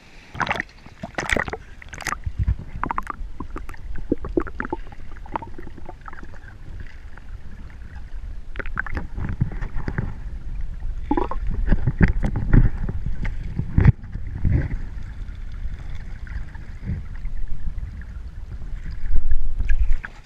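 Lake water sloshing and splashing around a camera held at and under the surface, with a steady low rumble and many irregular sharp splashes and knocks.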